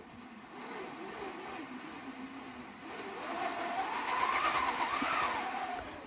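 Homemade rainmaker machine built from an old Ediphone being cranked, giving a steady rain-like hiss that swells gradually. In the second half a wavering tone rises and falls twice over the hiss.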